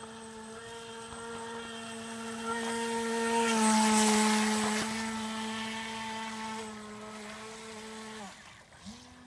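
Feilun FT012 RC speedboat's brushless motor running at a steady high whine with water spray hiss, growing loud as the boat passes close about four seconds in and dropping slightly in pitch as it goes by. It then fades and cuts off suddenly a second before the end, as the throttle is let off.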